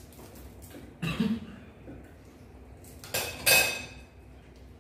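Crab shells cracking and clattering against a plate while crabs are eaten by hand. There are two sharp bursts, one about a second in and a louder one about three seconds in.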